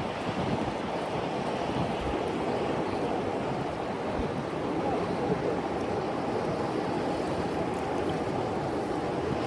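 Steady rushing of river current, an even noise without distinct events.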